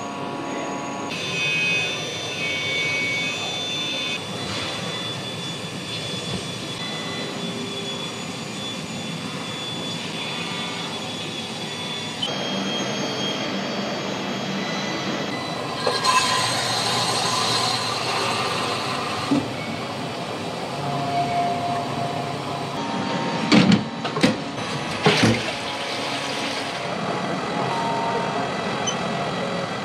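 Wire EDM machine running with a steady hum and hiss, its tone shifting abruptly several times, with a few loud sharp clanks about three-quarters of the way through.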